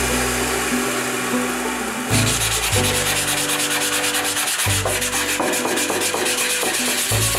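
Sandpaper rubbed by hand back and forth over the wet steel of a Keen Kutter double-bladed axe head, a rasping hiss that turns louder and quickly pulsing about two seconds in. Background music with a steady bass line plays underneath.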